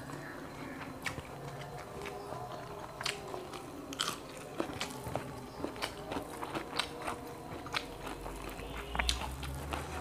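A person chewing and biting grilled quail close to the microphone, wet chewing broken by many short, sharp crunches.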